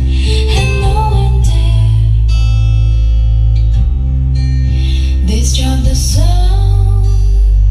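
A song with singing and guitar over heavy bass, played loud through a sound system driven by a professional power amplifier and a car audio amplifier together, as a sound test.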